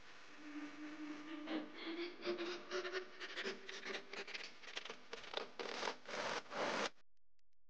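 Rubbing and scratching as a cone air filter's rubber coupler is pushed and twisted onto an engine's intake pipe, with a slowly rising squeak for the first few seconds. The sound cuts off suddenly near the end.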